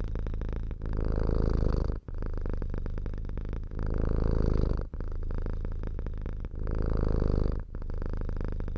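Domestic cat purring close up, a steady rumbling purr that grows louder and eases off with each breath, about every three seconds.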